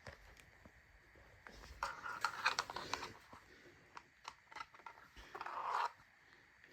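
Scattered light clicks and two stretches of rustling handling noise, with no steady motor sound.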